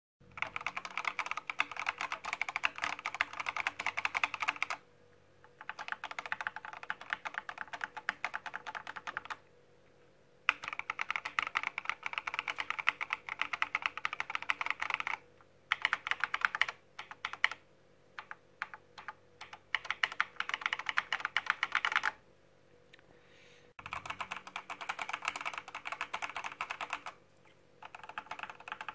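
Typing on a Gamakay LK67 mechanical keyboard with PE foam and paper tape mod, its linear switches clacking in fast runs of keystrokes. Short pauses break up the runs, and in the middle the keys are pressed one at a time, well spaced.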